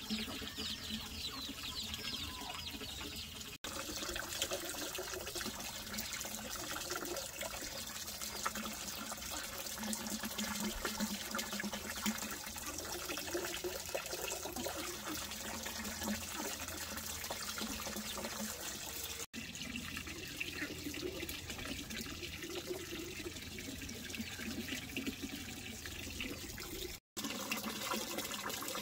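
Water running and splashing steadily, broken by three short dropouts.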